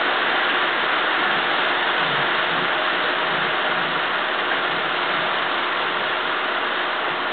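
Model train running on the layout's track, its wheels and motor making a steady whirring, rolling noise.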